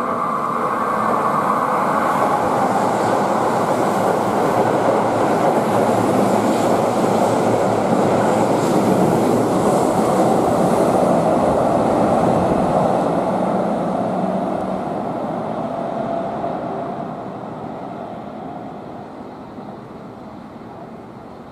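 A Keihan electric train running past on the Main Line, with the loud rolling noise of wheels on rails. It builds over the first couple of seconds, holds steady for about ten seconds, then fades away toward the end.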